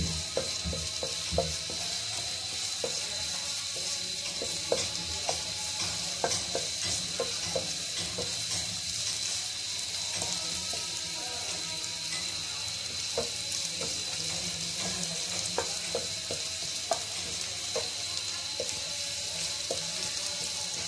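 Sliced onions and a bay leaf sizzling in hot oil in a non-stick frying pan, stirred with a wooden spatula that knocks and scrapes against the pan every second or so.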